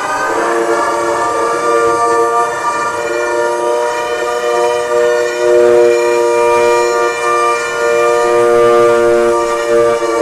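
Homemade sound effect of a Quetzalcoatlus, the giant pterosaur, calling: one long, loud call held at a steady pitch with many overtones, without a break.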